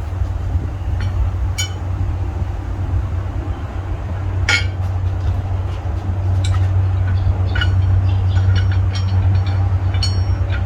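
A steady low mechanical rumble that grows a little louder after the middle, with scattered light clinks and knocks over it.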